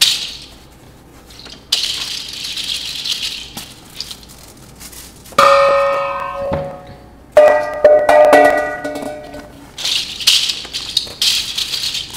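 Experimental percussion trio: a bundle of small objects shaken like a rattle and paper rustled and crumpled, making a dry hissing rattle, broken by two struck metal plates or gongs that ring out with many tones, one about five seconds in and another about two seconds later, each fading slowly.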